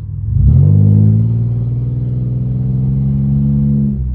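Pontiac engine with the catalytic converters removed and a new tune revs up over about half a second, then holds a steady higher drone through the catless exhaust for about three seconds before falling away near the end, heard from inside the car.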